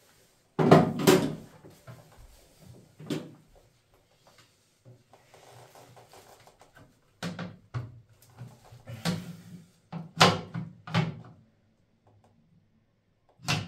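A string of irregular knocks and clunks, about nine in all, from hands at work on a toilet seat repair with a small toolbox: hard plastic parts being opened, moved and set down. The loudest come about a second in and around ten seconds in.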